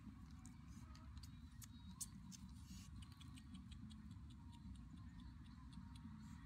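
Faint, irregular ticking and crackling from snails roasting in hot ashes as they are poked with a thin stick, the ticks coming about three or four a second in the middle, over a low steady rumble.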